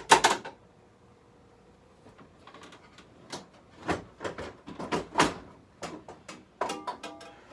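Wooden playfield of a Williams Liberty Bell pinball machine being lowered back into its cabinet. Two sharp knocks at the start, then a run of separate knocks and clunks as it is set down and settled.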